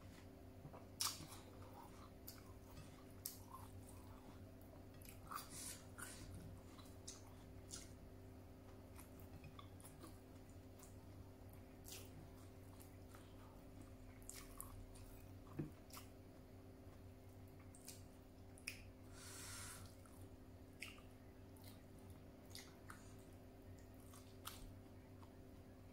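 Soft, close chewing with scattered short, sharp mouth clicks as food is eaten by hand. About three-quarters of the way through there is one longer hiss-like sound lasting about a second.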